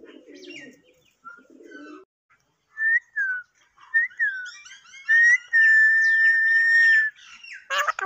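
Alexandrine parakeet whistling: a few short falling whistle notes, then one long, steady, loud whistle held for nearly two seconds, then a harsh rasping call near the end.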